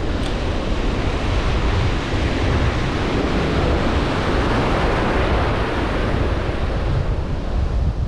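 Strong wind buffeting the microphone, a steady rushing noise with a gusty low rumble, over the wash of surf.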